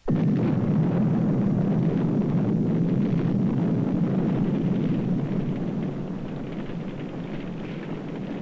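Loud low rumbling roar of a wartime attack, starting abruptly and easing off a little after about five seconds.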